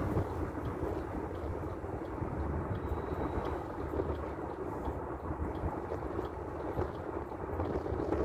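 Steady road rumble and wind noise of a moving car, heard from inside the cabin, with wind buffeting the microphone.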